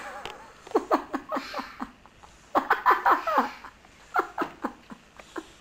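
A toddler vocalising in three short runs of high, quick syllables, like giggling or babbling.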